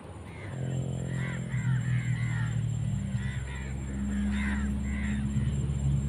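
Several crows cawing over and over, short harsh calls coming in quick runs. From about half a second in, low sustained background music plays under them.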